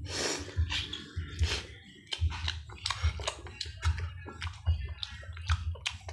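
Close-up chewing and mouth smacking from a mouthful of boiled pork hock and rice eaten by hand: an irregular run of clicks with dull low thumps, several a second.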